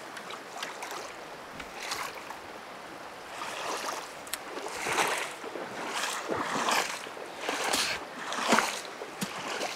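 Splashing steps of a person wading fast through shallow river water along a gravel bank, a string of uneven splashes.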